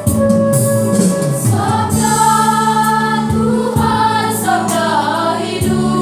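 High-school choir singing a Christian hymn with electronic keyboard accompaniment. The keyboard plays alone at first, with a bass line stepping down, and the choir comes in about two seconds in.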